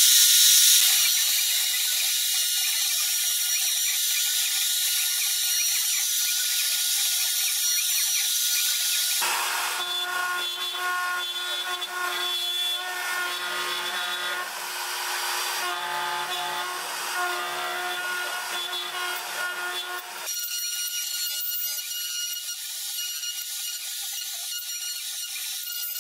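CNC machine's router spindle milling a wood block, a steady motor whine with the bit's cutting noise. About nine seconds in it drops to a lower pitch where the cut runs at real speed, and about twenty seconds in it jumps back up high where the footage is sped up fourfold.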